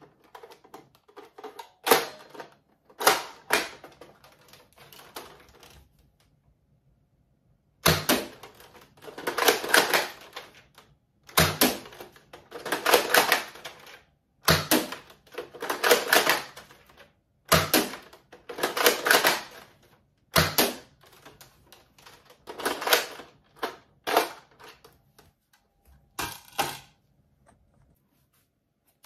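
Plastic toy dart blaster being worked by hand: repeated bursts of rapid plastic clicking and rattling, each opening with a sharp snap, with short pauses between.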